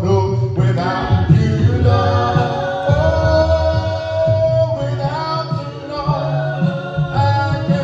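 Congregation singing a hymn a cappella, several voices in parts, with a long held note near the middle.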